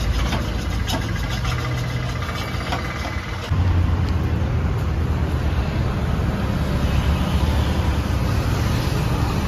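Light metallic clicks and taps of hand tools at a bench vise. About three and a half seconds in, these give way to a louder, steady low rumble of road traffic.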